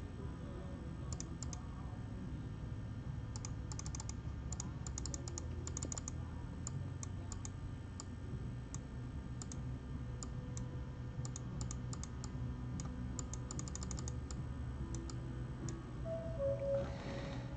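Typing on a computer keyboard: irregular runs of quick, light key clicks with short pauses between them, over a low steady hum.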